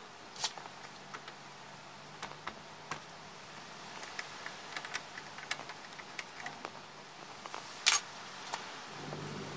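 Light metallic clicks and taps of a combination spanner on the neutral switch's hex nut of a Bajaj RE 205 auto rickshaw, as the switch is loosened for removal, with one louder clank about eight seconds in.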